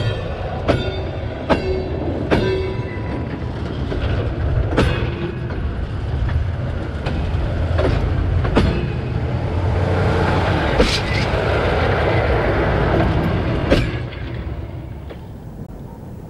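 Train wheels rolling over a bolted rail joint at close range: a steady rumble broken by sharp metallic clacks with a short ring as each wheel strikes the joint, several coming about 0.8 s apart. The rumble dies down over the last two seconds.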